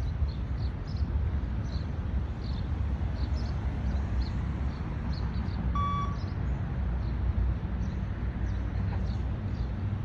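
A single short electronic beep from the beep-test recording about six seconds in, the signal for the runners to reach the line at the end of a shuttle. Under it runs a steady low rumble, with faint high ticks throughout.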